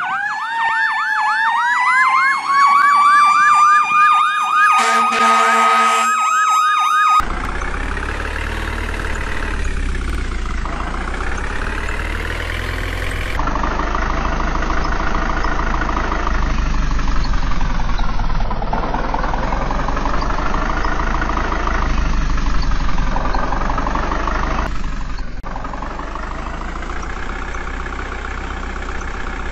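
A siren warbling fast, then gliding up into a steady wail, with a short blare about five seconds in; after about seven seconds it cuts abruptly to the rumble of a tractor engine running, swelling and easing every few seconds.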